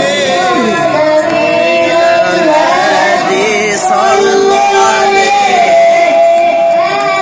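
A young boy's voice chanting a religious song through a microphone and PA speaker, holding long notes with ornamented, wavering runs between them.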